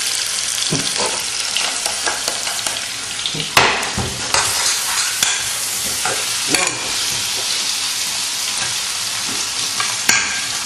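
Egg, würstel and tuna sizzling in oil in a frying pan, with a utensil stirring the food and a few sharp knocks against the pan; the loudest knock comes about three and a half seconds in.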